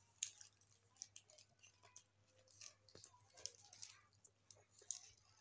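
Faint chewing and soft mouth clicks from a child eating a shawarma wrap, with a few scattered small ticks and rustles.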